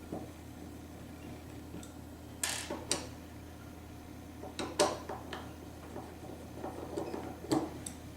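A few short metallic clicks and taps of a screwdriver and small screws being worked out of a mortise lock's case lid, over a steady low hum.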